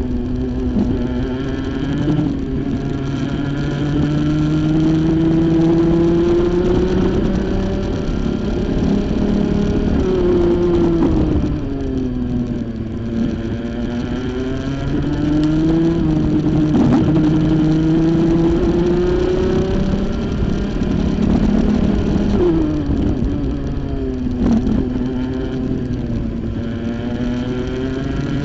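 Rotax Junior Max 125 cc two-stroke kart engine heard onboard at racing speed: the revs climb steadily along the straights and drop sharply under braking, about ten seconds in and again about twenty-two seconds in, then pick up once more out of the corners.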